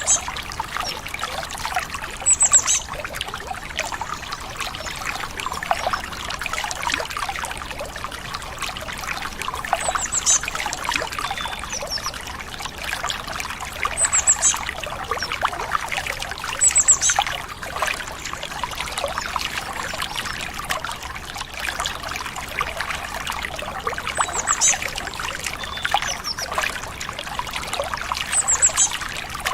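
Stream water trickling and splashing steadily, with a bird's short, high, quickly falling chirps every few seconds.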